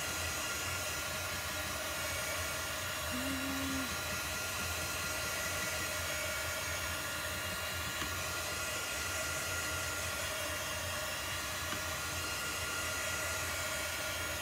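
Handheld craft heat tool blowing steadily, a fan's even whir and rush of hot air, drying a freshly applied layer of chalk paste.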